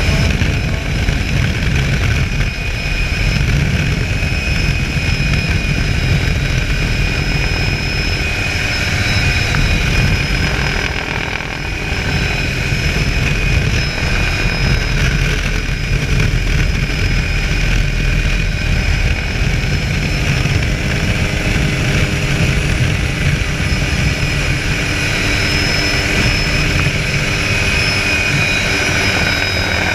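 Helicopter engine and rotor running steadily, heard from inside an open-doored cabin with wind rushing in; a steady high whine sits over a continuous low rumble.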